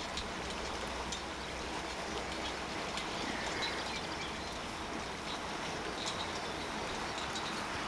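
Steady outdoor background noise with low rumble, and a few faint bird chirps.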